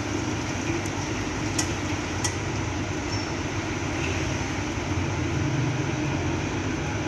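Steady mechanical hum with a constant rushing noise, and two sharp clicks about a second and a half and two seconds in.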